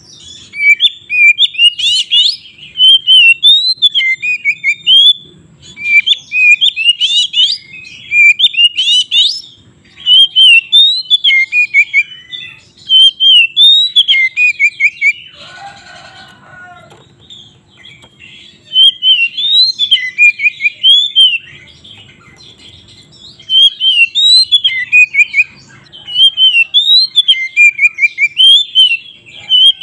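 Oriental magpie-robin (kacer) in full fighting song: loud runs of rapid, varied whistled phrases repeated again and again. Around the middle the song breaks off for a few seconds, and a short, lower, rougher sound comes in that gap.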